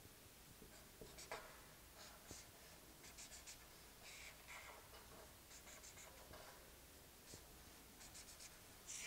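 Faint felt-tip marker strokes on paper: short scratchy swipes as lines of a circuit diagram are drawn, some in quick runs of three or four.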